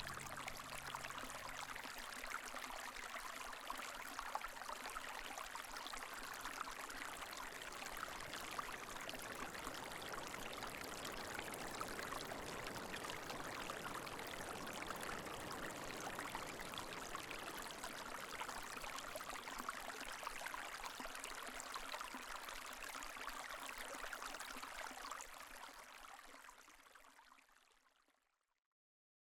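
Steady rushing of a small stream's running water, fading out near the end.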